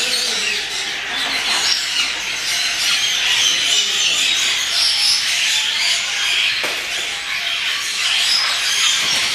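Dense, steady chatter of many birds, a mass of overlapping high chirps and squeals.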